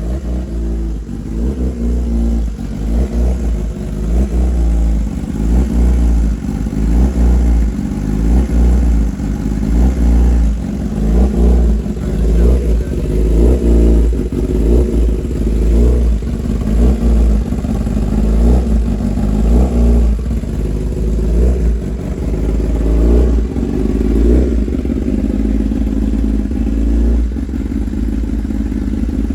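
A 2016 Kawasaki ZX10R's inline-four engine running through a full titanium SC Project exhaust, being revved repeatedly. The revs rise and fall every couple of seconds, then settle to a steadier idle near the end.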